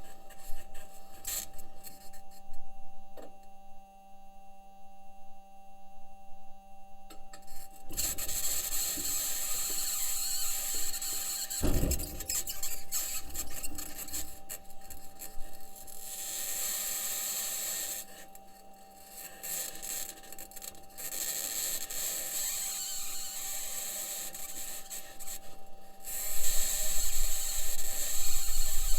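Perseverance Mars rover's wheels and suspension grinding and rasping over the Martian surface, with a knock partway through, under a steady faint electrical tone. A high-pitched scratching noise comes and goes; NASA engineers say it may be electromagnetic interference from one of the rover's electronics boxes or the mobility system working against the surface.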